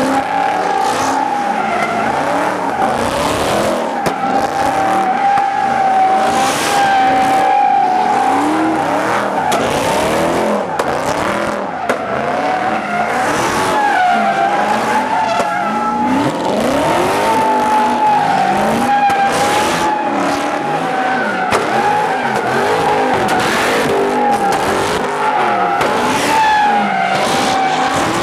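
Dodge Charger spinning donuts: the rear tires squeal in a steady, wavering high whine, while the engine is revved up and down underneath.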